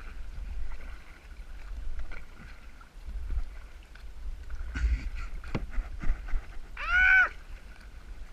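Two people paddling a tandem kayak: paddle strokes and water splashing against the hull over a steady low rumble of wind on a GoPro microphone. A short pitched call that rises and falls comes about seven seconds in.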